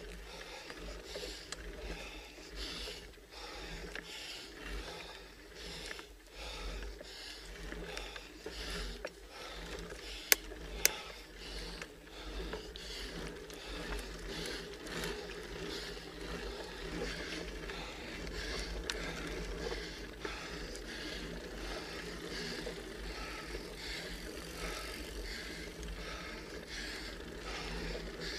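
Bicycle drivetrain clicking and scraping in a slow, uneven rhythm under hard pedalling up a very steep grade, with two sharp clicks close together about ten seconds in.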